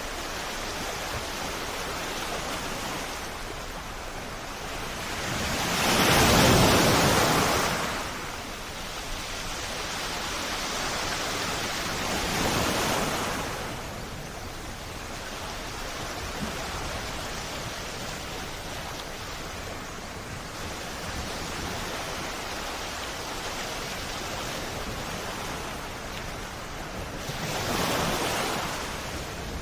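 Sea waves washing onto the shore: a steady hiss of surf with three louder surges as waves break, the biggest about six seconds in, a smaller one around twelve seconds, and another near the end.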